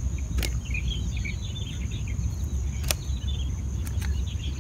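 Insects droning in a steady high tone and birds chirping, over a constant low rumble, with a few sharp clicks near the start, about three seconds in and about four seconds in.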